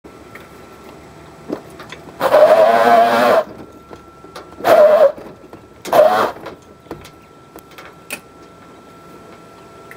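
Electric golf cart's rear knobby tire spinning on concrete and squealing three times under throttle, one longer squeal about two seconds in and two shorter ones after it: the tire breaking traction and laying rubber.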